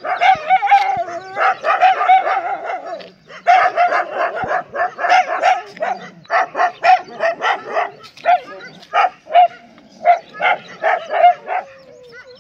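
Dogs barking hard and repeatedly at a herd of nilgai antelope to drive it off. The barking is nearly continuous at first, and after a short pause about three seconds in it becomes a rapid run of separate barks, about two to three a second, that spaces out toward the end.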